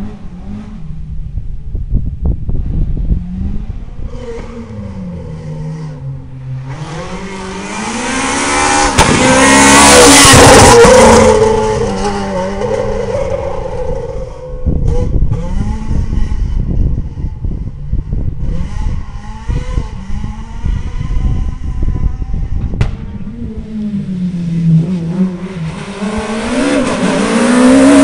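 Rally cars driven hard on a tarmac stage: engines revving up and down through gear changes as they approach and pass. The loudest pass comes about ten seconds in, and another car closes in near the end.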